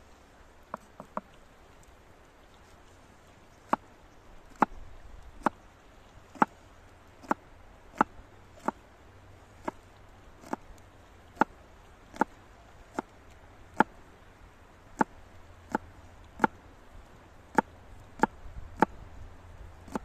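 Broad-bladed kitchen knife chopping green vegetables on a wooden cutting board: a few light taps about a second in, then single, evenly spaced chops about one every 0.8 s.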